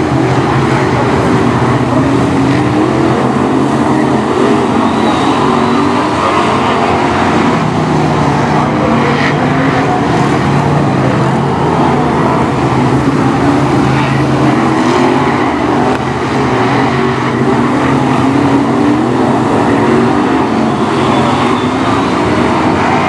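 BriSCA F1 stock cars racing, their V8 engines running hard, several at once, with the pitch rising and falling as they accelerate and back off.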